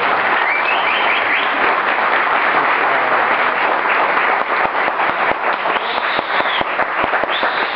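Audience applauding a live performance, dense clapping that thins into more separate claps toward the end. A few high-pitched calls from the crowd come near the start and near the end.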